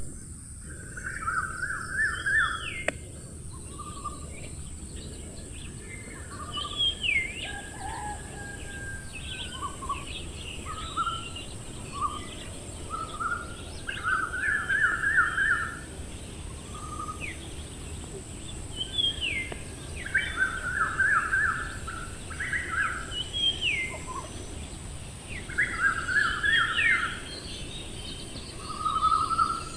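Several small birds calling over a steady high hiss: short rapid trills and quick falling whistles repeat every second or two.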